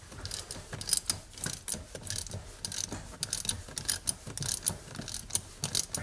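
Ratchet with a 12 mm socket clicking in short rapid runs as it works the nut off the shifter linkage bolt.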